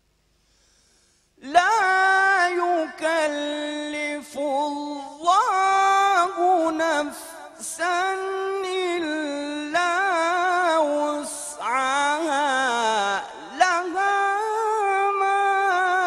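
Silence for about a second and a half, then a man's solo voice chanting in Arabic with no accompaniment, in long held notes with ornamented, wavering turns and short breaths between phrases.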